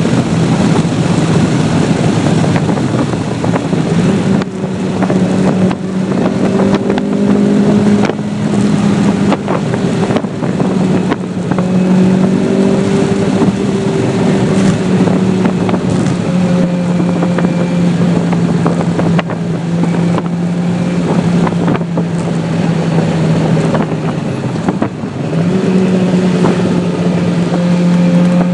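Ferrari engine heard from inside the cabin while driving, its note mostly holding steady with a few brief dips, then rising in pitch near the end as the car accelerates, over road and wind noise.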